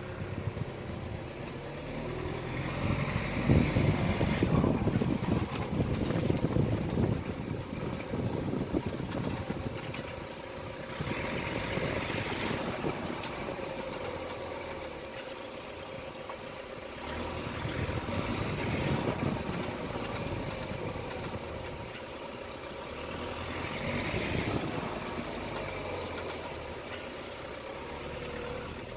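Car with a 7-speed DSG gearbox driven slowly, its engine and drivetrain sound swelling and easing off several times as the throttle is applied and released. On each release at low speed comes the abnormal drivetrain noise that was eventually traced to a failing outer joint on the left driveshaft.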